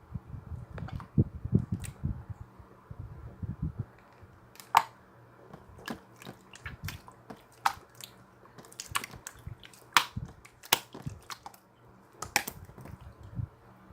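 Slime being worked by hand: soft low squishing for the first few seconds, then a run of sharp, irregular clicks and pops.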